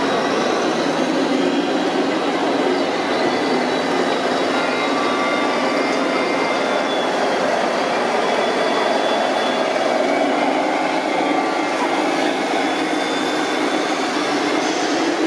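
Radio-controlled scale truck's electric drive running as it crawls over dirt: a steady mechanical noise with thin whines that drift in pitch.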